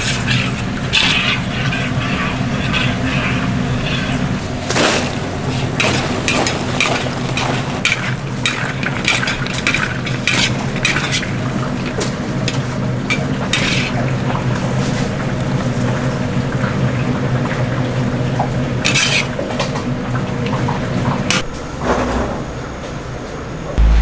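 Chicken gangjeong being cooked: metal utensils clatter and scrape against pots and pans amid frying, over a steady low machine hum.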